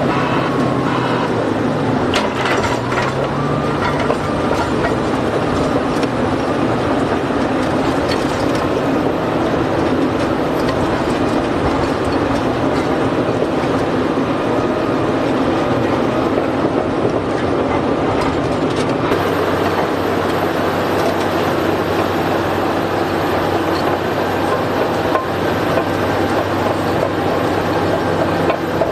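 Giant mining excavator at work: a steady, heavy diesel drone with mechanical clatter and occasional sharp clanks. The low engine tone shifts about two-thirds of the way through.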